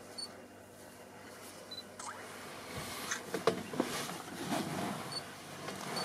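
Frogs calling with a few short, high clicks that sound like a camera shutter. From about two seconds in there are also louder knocks and rustling.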